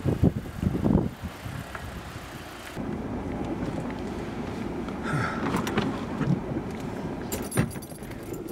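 A car driving at steady speed, with engine and road noise. There are a few low thumps in the first second and a short run of sharp clicks near the end.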